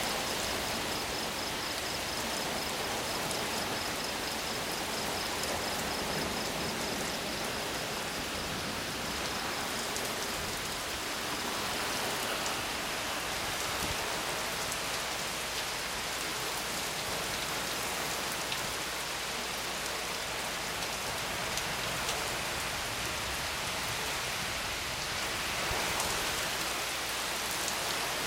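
Steady rain falling during a thunderstorm, an even hiss with fine patter. A faint, evenly pulsed high chirping runs through the first several seconds.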